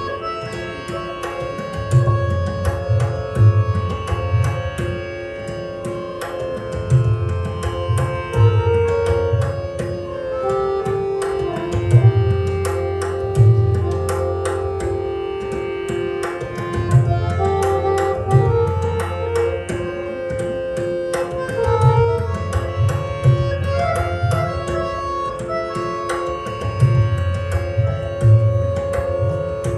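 Tabla solo: crisp dayan strokes and deep, resonant bayan bass strokes, played over a harmonium repeating a held-note lehra melody in raag Nat Bhairav.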